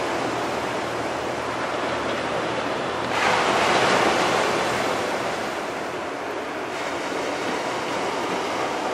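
Small, gentle surf washing onto the beach as a steady rush of water. One wave breaks and washes up about three seconds in, louder for a couple of seconds before easing back.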